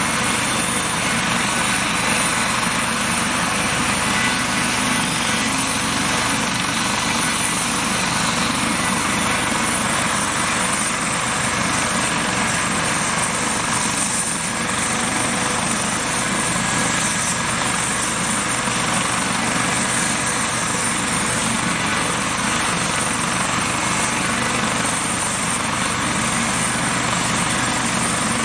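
Dauphin twin-turbine helicopter running on the ground with its rotor turning: a steady turbine whine with a high, constant whistle over the rotor noise, holding at idle with no change in pitch.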